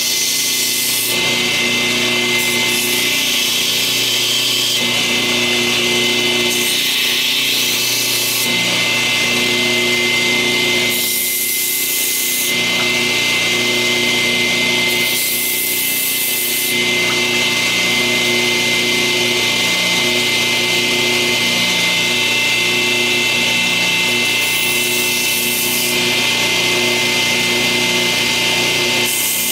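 A power grinder running steadily while grinding the steel blade of a Schrade lockback folding knife, reshaping its broken tip. The high grinding hiss swells and fades in stretches of a few seconds over the steady motor hum.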